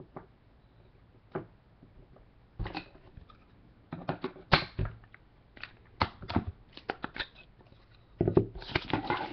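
Trading cards being handled: scattered light clicks and rustles, sparse at first and busier in the middle, with a denser rustle near the end.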